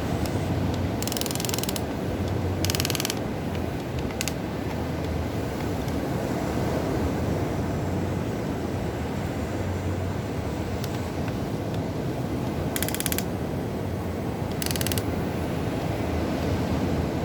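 Huina radio-controlled model excavator's electric motors and gearboxes whirring in four short bursts as the machine moves, over a steady rushing noise.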